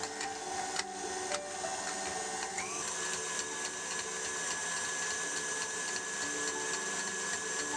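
KitchenAid Artisan stand mixer running with its wire whisk beating mascarpone and cream in a steel bowl. A steady motor whine rises in pitch about three seconds in as it is set to high speed, then holds.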